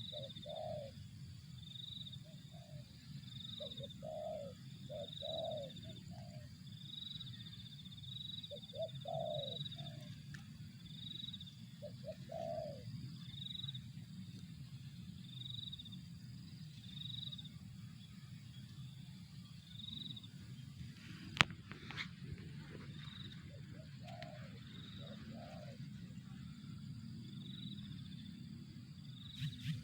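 Spotted dove (tekukur) cooing in short phrases of a few notes through the first half and once more briefly about 24 seconds in. A high short chirp repeats about once a second throughout, and a single sharp click comes a little after 21 seconds.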